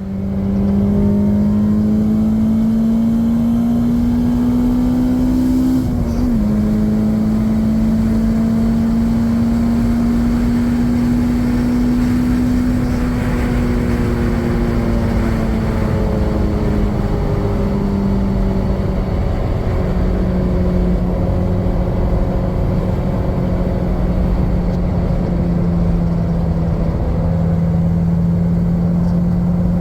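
Honda S2000's four-cylinder engine running while the car is driven, breathing through a newly fitted K&N Typhoon air intake. A steady drone rises slowly in pitch, drops suddenly about six seconds in, climbs again, then eases lower over the second half.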